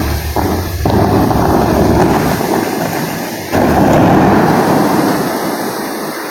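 Bellagio fountain's water jets blasting into the air with a loud rushing whoosh of water and spray. A fresh blast comes in about a second in and a louder, sudden one about three and a half seconds in, which then fades away as the spray falls.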